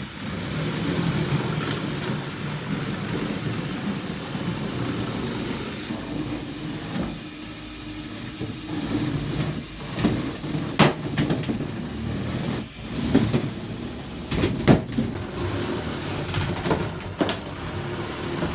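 Lego combat robots fighting: a steady whir of their small electric motors, with a series of sharp plastic knocks and clatters as the robots collide, bunched in the second half.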